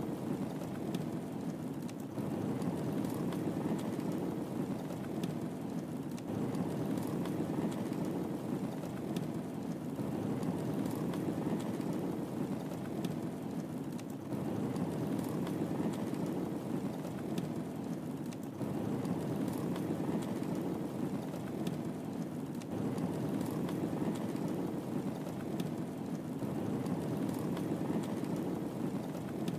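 Wood fire burning in a fireplace: a steady low rumble of flame with faint sharp crackles and pops scattered through it. The rumble swells and eases about every four seconds.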